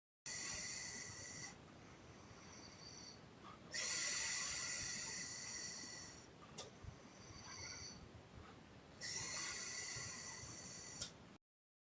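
A sleeping woman's heavy breathing: three loud, hissy puffing snores, one every four to five seconds, each fading out, with quieter breaths between. The sound drops out completely for a moment near the end.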